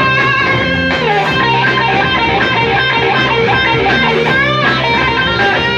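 A live rock band playing, with electric guitar to the fore and sliding, bent notes.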